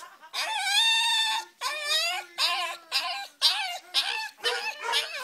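Small short-haired dog howling and whining in high-pitched cries: one long held cry about a second long near the start, then five or six shorter ones that waver up and down in pitch.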